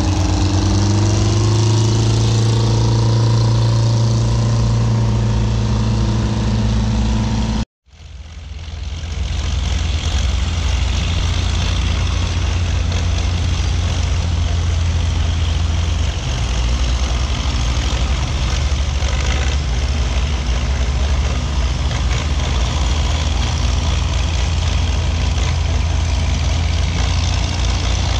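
Diesel engine of an antique crawler bulldozer running steadily under load as it pushes dirt, rising a little in pitch in the first couple of seconds. The sound cuts out abruptly about eight seconds in and fades back up to the same steady engine noise.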